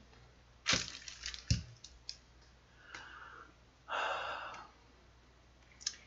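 Computer mouse and desk clicks, one soft knock, then two short breathy exhales about three and four seconds in, the second louder, like a sigh of frustration.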